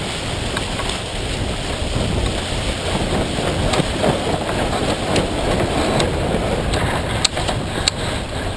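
Wind buffeting the microphone over the rush of water along the hull of a heeled sailboat under way, a steady loud roar of noise. A few sharp clicks near the end.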